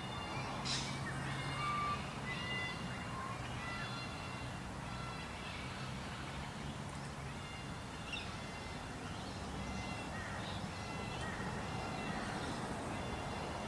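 Chorus of small songbirds: many short, high chirps and whistles repeating throughout, over a low steady hum. A sharp click sounds just under a second in.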